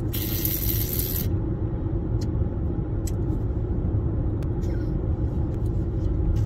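Car road noise heard from inside the cabin while driving: a steady low rumble of tyres and engine, with a brief hiss in the first second.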